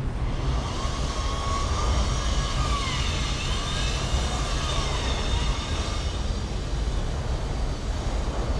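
Steady low rumble of city noise, with several faint tones gliding up and down over it.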